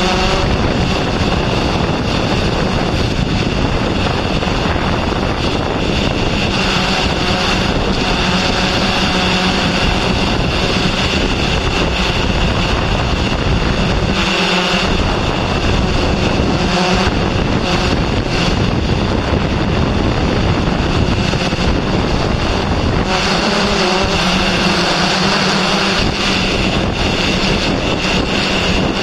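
Steady small-motor noise with a high whine and a low hum, mixed with wind noise on the microphone, dipping briefly twice.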